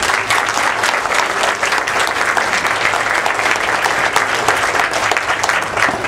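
Audience applauding: many hands clapping at once in a steady, loud burst that fades out near the end.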